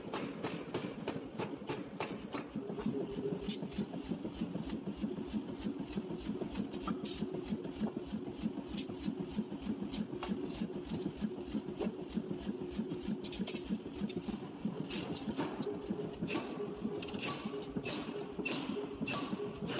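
Large forging power hammer working a red-hot steel ring: a fast, steady pounding rhythm, with sharper metallic knocks coming more often near the end.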